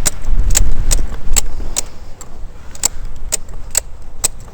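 Regular sharp metallic clicking, about two clicks a second, with a low rumble in the first second and a half.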